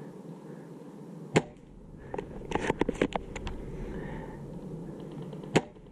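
Novritsch SSG24 spring-powered bolt-action airsoft sniper rifle fired twice, two sharp cracks about four seconds apart, with a quick run of clicks and rattles between them as the bolt is worked.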